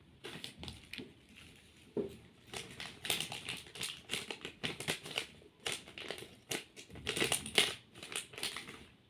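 A fidget toy being squeezed and worked by hand, making irregular runs of crinkling and crunching crackles.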